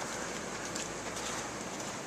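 Steady wind noise with a few faint, scattered ticks.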